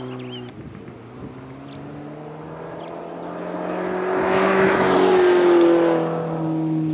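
2022 Subaru BRZ's 2.4-litre flat-four engine idling steadily shortly after a cold start, with a rush of louder noise swelling and fading about four to six seconds in.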